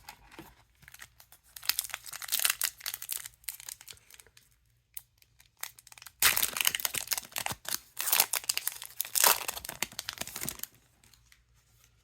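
A trading-card booster pack's wrapper being torn open and crinkled by hand, in three bursts of crackling with short pauses between.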